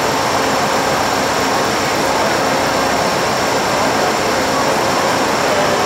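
Amtrak GE Genesis P40DC diesel-electric locomotive standing still with its engine running, a steady, loud, even roar.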